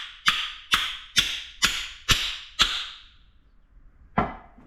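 Hammer blows on metal, about two a second, each ringing after it; six strikes, then they stop and the ringing dies away, with a single knock near the end.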